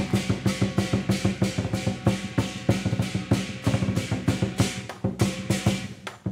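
Chinese lion dance percussion: a large drum beaten in fast, dense strokes with cymbals crashing along in a driving rhythm.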